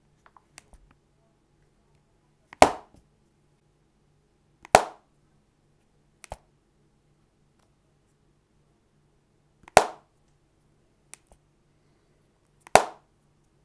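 CAT S22 Flip clamshell phone being opened and shut by hand close to the microphone. Its hinge and casing give four loud, sharp snaps, several seconds apart, with a couple of fainter clicks between them.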